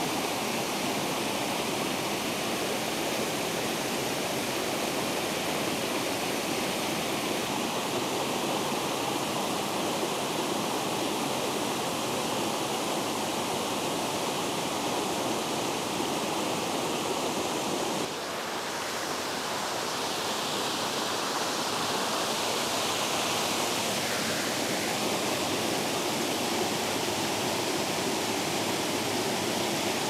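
Waterfall cascading over stepped rock ledges: a steady, full rush of falling and tumbling water. A little past halfway the rush dips briefly, then comes back with more hiss.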